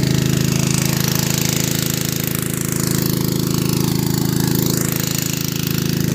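Small engine-driven water pump running steadily with a fast, even chugging beat, pumping the water out of a pond through its corrugated hose.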